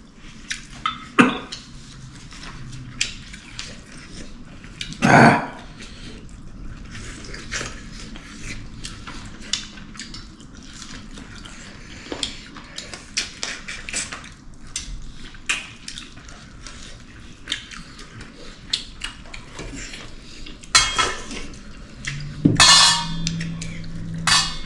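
Spoons and dishes clinking and tapping lightly and irregularly, with a louder clatter about five seconds in.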